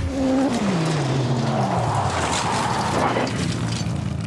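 Ford Ranger Raptor pickup truck driven hard through loose dirt. The engine note falls steadily over the first two seconds under a loud rush of tyres churning dirt and gravel.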